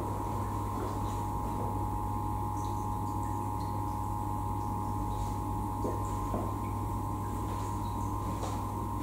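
An inch-and-a-half electric water pump running steadily to fill a flood-test tank, giving a constant low hum with a steady high whine over it and a few faint ticks.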